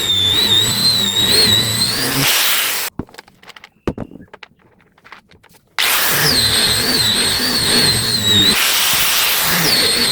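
A power tool running on wood, its motor whine wavering as the load changes. It cuts out abruptly about three seconds in, leaving a few light knocks, and starts again about three seconds later.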